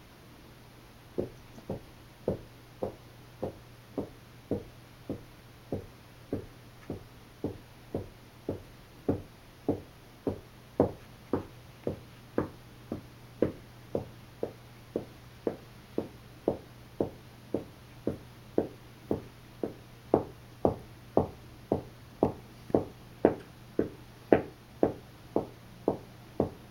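A resting pet hiccuping over and over: short, sharp hiccups at an even pace of nearly two a second, starting about a second in.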